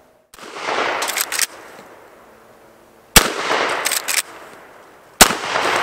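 Henry Lever Action Axe .410 firing three times, about two seconds apart, with target loads of #8 shot. Each shot is followed a moment later by a quick cluster of metallic clacks as the lever is worked to chamber the next shell.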